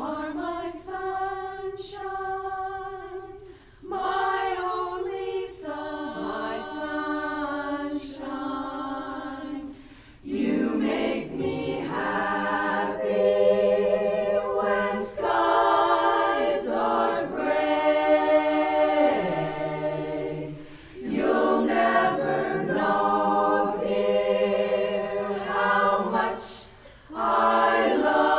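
Women's barbershop chorus singing a cappella in close four-part harmony. The singing comes in sustained phrases with short breaks between them and grows louder about ten seconds in.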